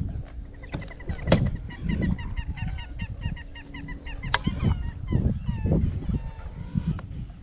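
Marsh birds calling: a fast run of repeated high notes from about half a second in to about four seconds, then scattered calls, over a low rumble. Two sharp knocks, the loudest about a second in and another past four seconds.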